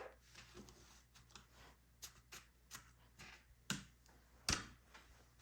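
Paper bills and cash envelopes being handled: a run of short, crisp rustles and flicks, with two sharper snaps in the second half.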